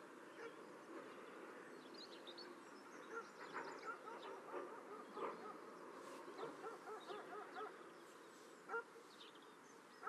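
Faint outdoor ambience with many short bird calls chattering and honking throughout.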